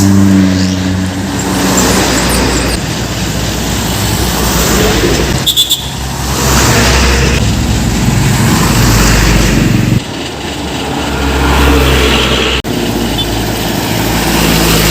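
Road traffic with trucks passing one after another, engines running loud. The sound swells and falls as each vehicle goes by.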